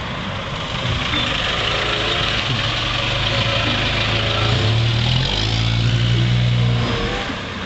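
A USPS mail delivery truck's engine running at low speed, idling and moving off, a steady low hum over road noise.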